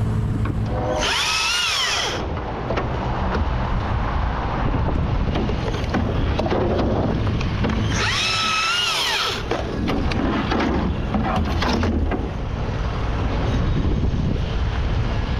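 Husqvarna T542i XP battery-powered top-handle chainsaw running in short bursts. It whines up to full speed and back down twice, about a second each, with rougher cutting noise and a low steady rumble between.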